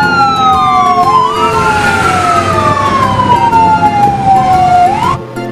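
Fire engine siren wailing over truck engine and road noise. Its pitch falls over about a second, climbs back up, then falls slowly for about three seconds before sweeping sharply up again near the end.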